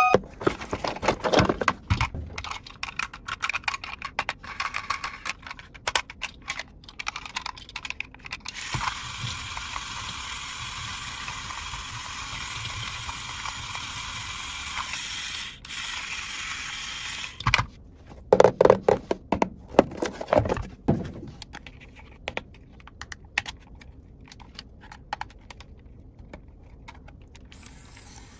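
Small plastic toy parts being handled, clicking, tapping and scraping, with a steady hiss for about nine seconds in the middle and a cluster of louder knocks after it.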